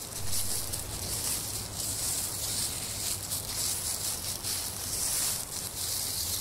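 Dry fallen leaves crackling and rustling under the feet of a small leashed dog and its walker, in an uneven run of crunchy steps with brief pauses.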